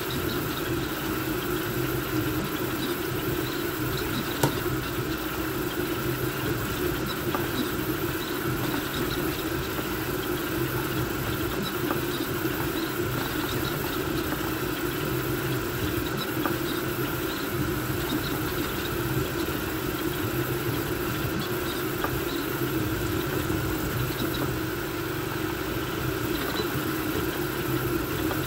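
Voron V2.4 CoreXY 3D printer running a fast print: steady whir of its cooling fans under the hum of the stepper motors driving the toolhead, with a light click about four seconds in.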